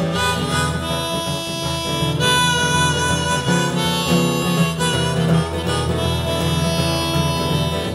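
Harmonica playing a melody over acoustic guitar accompaniment.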